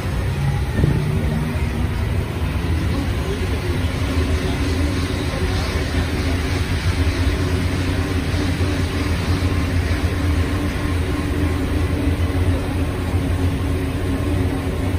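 MP89CA rubber-tyred metro train running, heard from inside the car: a steady low hum under a steady motor tone and running noise, with a single knock about a second in.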